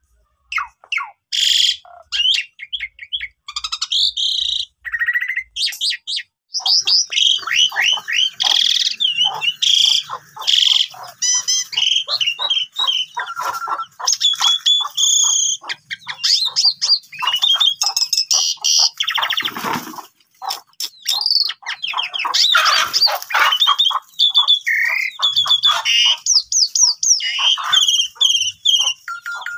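Pied starling (jalak suren) singing a long, rapid, varied song of chattering, whistled glides and harsh notes, with a sparser stretch of scattered calls in the first few seconds. It is the full, excited (gacor) song of the bird, of the kind played to provoke other jalak suren into singing.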